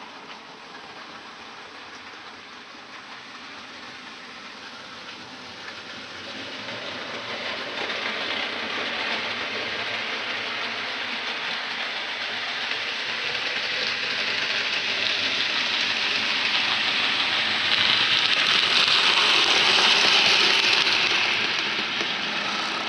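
Model freight train running through on the layout's track, a rushing rolling noise of wheels on rail that grows louder, is loudest a few seconds before the end, then begins to fade as it passes.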